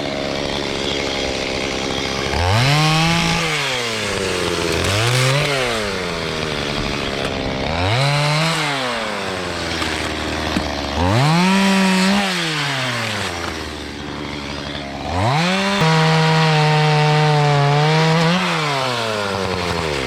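Stihl two-stroke chainsaw idling and revved up to full throttle five times, its pitch rising each time and falling back to idle, as it cuts dry firewood logs. The last run is held for about three seconds before the saw shuts off.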